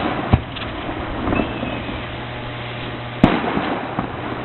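Aerial fireworks shells bursting: a sharp bang just after the start, a louder one about three seconds in and another at the end, each followed by an echoing rumble.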